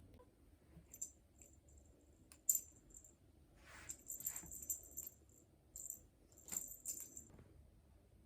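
Small metal bell jingling faintly in short bursts, several times over, with a few soft clicks.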